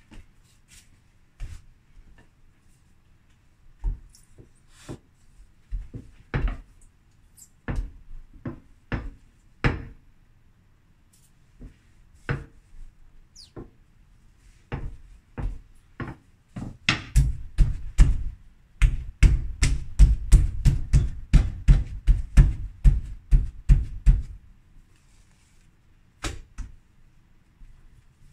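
A rolling pin knocking and thumping on the worktop as bread dough is rolled out. There are scattered taps at first, then, from about halfway in, a fast run of repeated thumps, about three a second, that stops a few seconds before the end.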